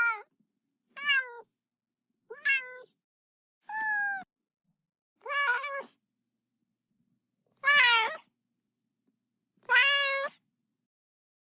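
A cat meowing loudly, about seven separate meows, each under a second long and bending in pitch, with short silences between them.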